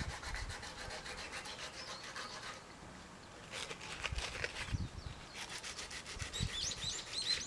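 Faint scratching and rubbing with light clicks, fading after about two and a half seconds, then a few scattered ticks; near the end a small bird chirps several times.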